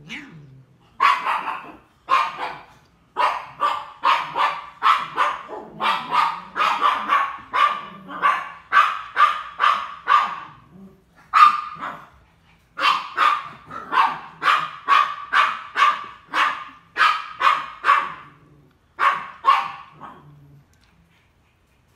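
A dog barking over and over, about two barks a second with a few short breaks, stopping near the end.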